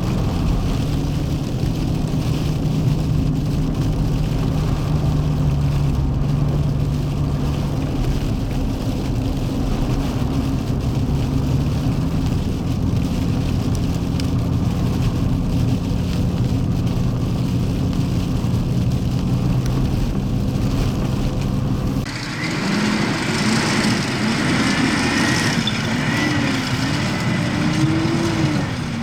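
Steady vehicle engine and road noise while driving. About twenty-two seconds in, it cuts abruptly to another motor sound whose pitch rises and falls repeatedly.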